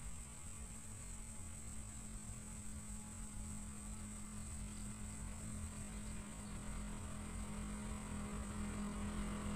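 A low, steady hum that slowly grows louder, with a faint steady high-pitched hiss above it.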